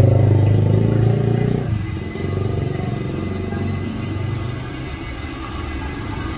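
A motorcycle engine running close by, a low steady hum that fades away after about two seconds, leaving quieter mixed street noise.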